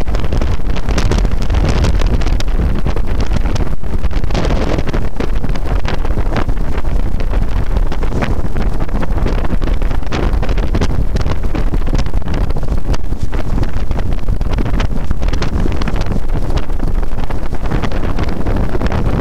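Storm wind buffeting the microphone with a loud, steady rumble, over rough, storm-driven sea water churning and splashing against the stone walls of a sea lock.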